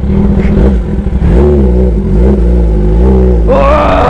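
Sport motorcycle engine running at low road speed, its revs rising and falling as the bike pushes a scooter along.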